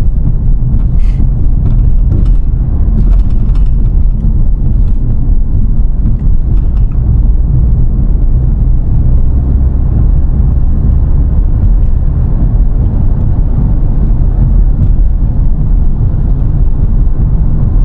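Steady low rumble of a vehicle being driven on the road, with a few faint clicks in the first few seconds.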